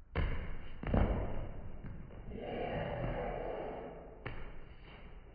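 Heavy thuds from a jumping knee strike into a 100-pound synthetic-leather heavy bag and the landing: two deep impacts about a second apart near the start, another about four seconds in, with a softer rustling swell in between.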